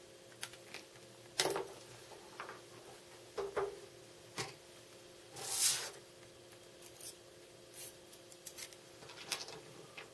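Small parts being handled on a wooden tabletop: a marker, neodymium ring magnets, steel washers and a long stainless screw. There are scattered light clicks and taps, and a short rub about five and a half seconds in, over a faint steady hum.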